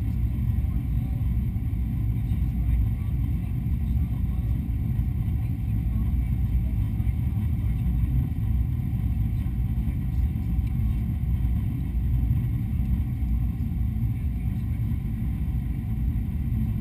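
Steady cabin noise inside a Boeing 777-200 in flight: an even, low rumble of the twin engines and the airflow past the fuselage, heard at a window seat over the wing.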